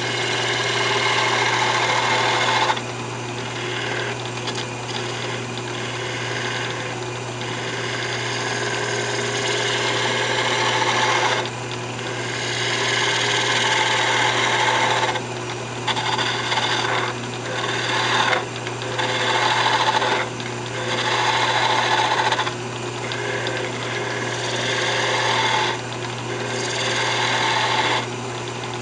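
Wood lathe motor running with a steady hum while a skew chisel cuts a walnut spindle, the cutting noise coming and going in passes of a few seconds with short breaks between them.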